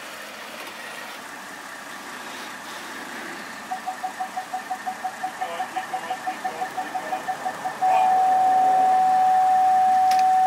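Reversing vehicle's parking sensor beeping, about five quick beeps a second and speeding up from about four seconds in, then changing to one continuous tone about eight seconds in as the vehicle closes on an obstacle. Vehicle engine running steadily underneath.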